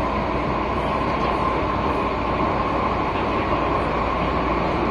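Cabin noise of an MTR Tsuen Wan line metro train running between stations: a steady rumble of wheels on rail under a constant hiss, with a steady whine throughout.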